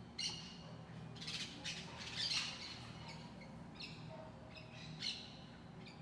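Birds calling: a run of short, high-pitched, harsh chirps and squawks in several bunches, loudest a little over two seconds in, over a faint steady low hum.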